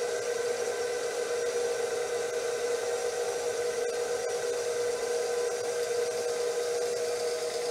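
KitchenAid stand mixer motor running at a steady speed with an even whine, driving a pasta sheet roller attachment as a sheet of dough is rolled through.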